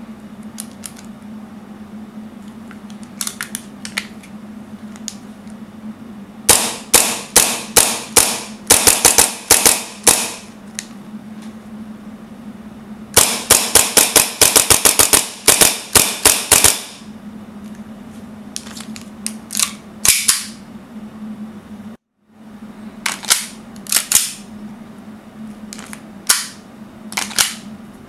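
Gas blowback Tokyo Marui Hi-Capa airsoft pistol firing in strings of sharp shots, each a crack with the slide cycling. The fastest string, about seven shots a second, comes past the middle, and a few scattered shots and clicks come later.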